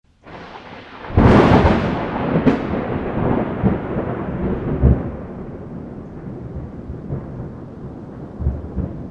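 Thunder: a sharp crack about a second in, a second crack shortly after, then rolling rumble that slowly dies away.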